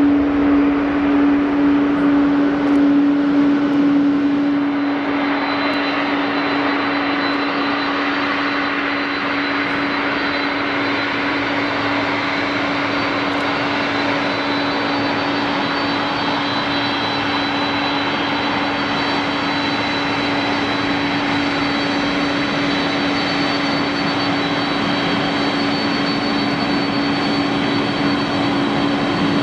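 Jet engines of a Japan Airlines Boeing 767-346 running steadily, with a strong low hum that fades about five seconds in as a thin high whine comes in and holds.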